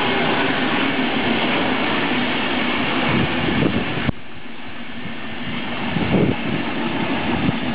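Deutsche Bahn InterCity passenger coaches rolling past on the rails, a steady loud rumble of wheels on track. About four seconds in the noise drops suddenly and goes on quieter, with a few louder bursts, as the cab control car at the end of the train goes by.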